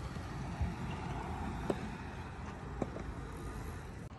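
Wind rumbling on the microphone, with three faint clicks about a second apart.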